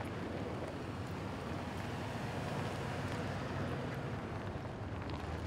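Steady engine and tyre noise of emergency vehicles rolling slowly past in a line.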